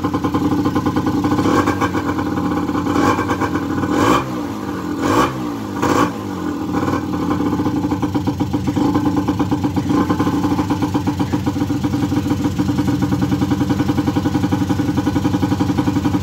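Small two-stroke ATV engine, freshly rebuilt with a new piston and rings, running. It is blipped several times in the first six seconds, its pitch dropping back after each rev, then it settles into a steady idle with a fast, even pulsing beat.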